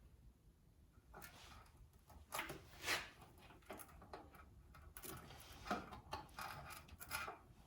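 Tools and parts being handled at close range: a scattered series of light clicks, knocks and scrapes, the loudest a few seconds in.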